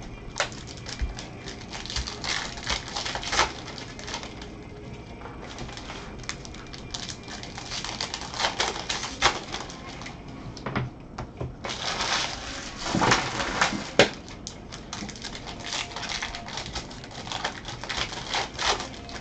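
Baseball card pack wrappers crinkling and tearing as they are ripped open, and cards clicking and sliding against each other as a stack is handled. It comes in several bursts of crackle, with a sharp click about two-thirds of the way through.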